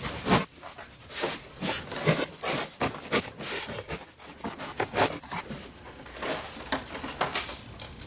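Cardboard box being handled and torn open: flaps pulled back with scraping and rustling of cardboard, mixed with knocks as black plastic frame foundations are lifted out.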